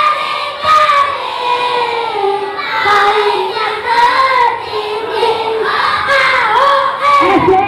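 A group of young schoolchildren singing a cheer chant together, with held notes that slide up and down.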